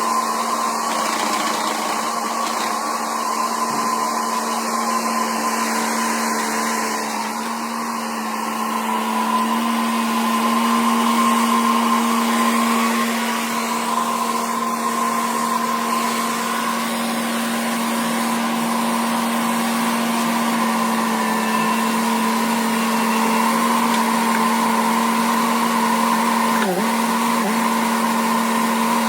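Kubota mini skid steer's engine running at a steady, high throttle: a constant hum that holds one pitch, with a brief dip about 27 seconds in.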